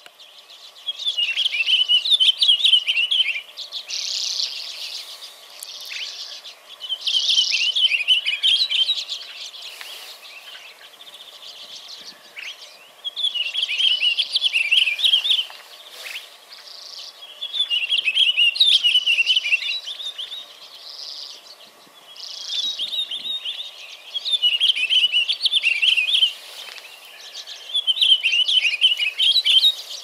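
Pine grosbeak singing: short, rich warbled phrases of two to three seconds, repeated every few seconds.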